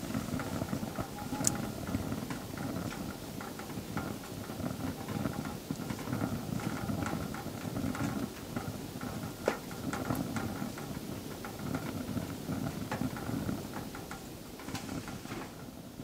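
Small wood-burning tent stove burning: a steady low rumble of the fire's draft, with scattered crackles and pops from the burning logs.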